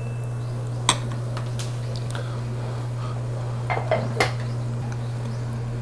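Stainless metal kitchen tongs clinking against metal cookware as a piece of cooked meat is picked up: a few sharp clinks about a second in and again around four seconds in, over a steady low hum.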